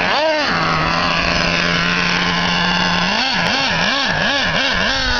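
Traxxas Revo RC monster truck's small nitro engine idling with a steady buzzing drone, revved up and back down once near the start, then blipped rapidly several times in a row from about three seconds in.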